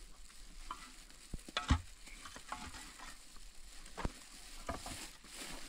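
Concrete blocks being shifted and set on gritty soil: gravelly scraping with a few sharp knocks, the loudest about a second and a half in.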